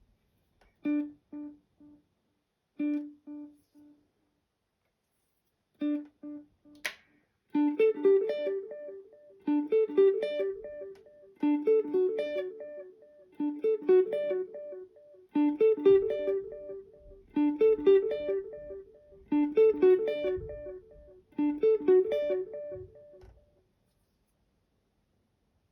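Electric guitar played through an MXR Carbon Copy analog delay pedal. First come a few single picked notes, each followed by quickly fading echoes. A sharp click comes about seven seconds in, then a short picked phrase repeats about every two seconds with echoes trailing each one, and the playing stops a couple of seconds before the end.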